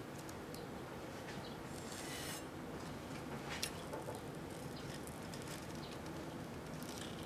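Kitchen knife cutting down through a gelatin bowl topped with Froot Loops cereal: faint scattered crackles from the crunchy loops, a short rasping scrape about two seconds in, and a sharp click a little after three and a half seconds.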